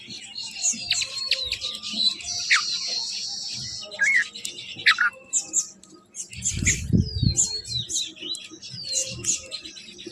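Several birds chirping and calling, with quick sliding whistles and stretches of dense chatter. A brief low rumble comes about six and a half seconds in.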